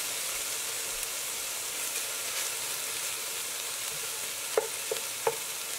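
Crumbled turkey Italian sausage sizzling steadily as it browns in oil in an enameled Dutch oven, stirred and scraped with a wooden spatula. Three short sharp clicks near the end.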